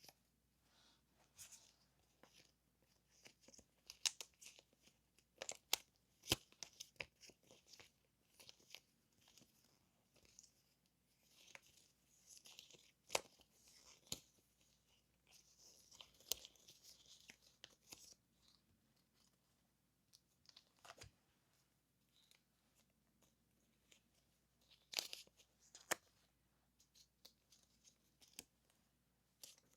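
Paper stationery and its plastic packaging being handled up close: quiet scattered rustles, crinkles, sharp taps and short tearing sounds.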